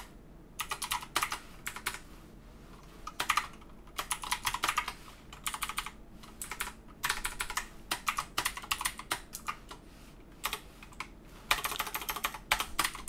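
Typing on a computer keyboard: quick runs of keystrokes broken by short pauses of a second or so.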